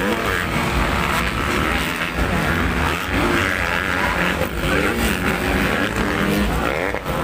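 Several motocross dirt bike engines revving, their pitch rising and falling repeatedly as they race, over a steady background of noise.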